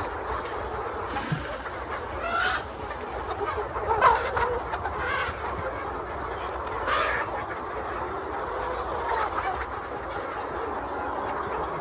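A flock of chickens clucking and chattering steadily, with a few louder squawks standing out about a quarter, a third, and halfway through.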